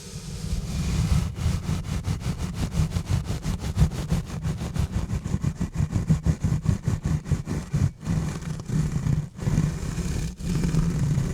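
Exfoliating gloves rubbed and scratched directly on a bare microphone. The quick, repeated strokes come several a second with a heavy rumble of contact on the mic. It swells up in the first second and breaks off briefly a few times in the second half.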